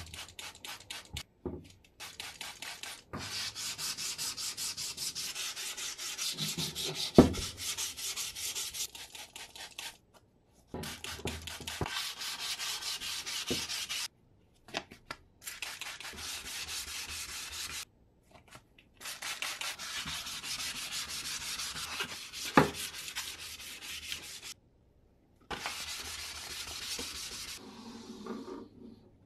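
Cast epoxy resin axe handle being wet-sanded by hand: rapid, even back-and-forth rubbing strokes in several runs with short breaks between them. A sharp knock comes twice, the loudest moments.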